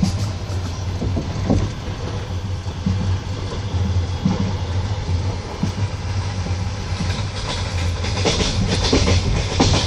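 Passenger train carriage rolling along with a steady low rumble and scattered wheel clacks over the rail joints, heard from inside the car; the clatter grows busier near the end.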